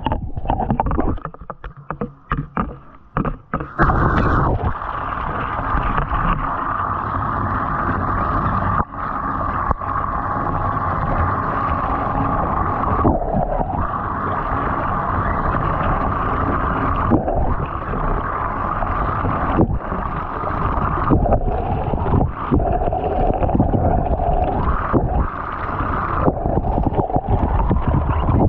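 Water splashing and sloshing in a bathtub for the first few seconds, then a steady rush of running water, muffled as if heard at or under the water surface.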